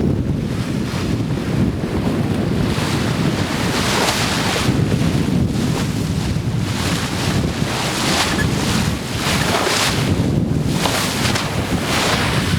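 Wind buffeting the microphone over seawater rushing and washing past a sailboat's hull under sail, in repeated surges.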